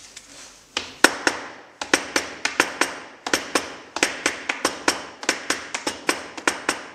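A hammer tapping a planer block laid on a forme of metal letterpress type, in quick sharp knocks about four a second, starting about a second in. The tapping settles the letters level in the chase before it is locked up.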